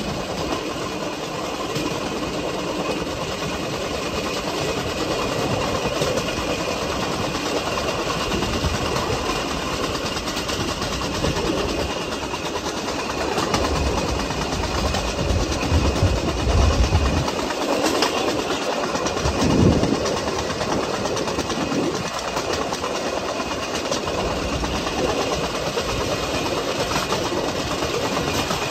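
Steel wheels of a pedal-powered vélorail rolling along old railway track: a steady rolling rumble with clicks over the rail joints, and a few heavier low bumps about two-thirds of the way in.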